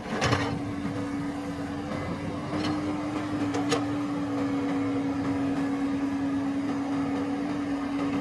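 Farm machine engine running steadily with a constant hum, with a few sharp knocks over it, the loudest just after the start.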